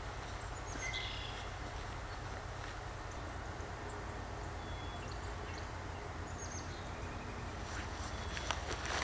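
Outdoor woodland ambience: a steady low rumble with a few short, high bird calls scattered through, and crunching footsteps starting near the end.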